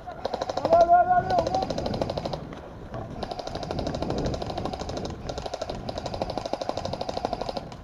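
Airsoft guns firing on full auto: a rapid, even rattle of shots in several bursts, the last two lasting about two seconds each. A brief shout sounds about a second in.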